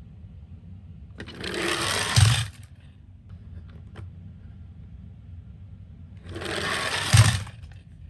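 Die-cast toy ambulance rolling down a toy slope twice: each run is a whirring rattle of small wheels that grows louder for about a second and ends in a thump.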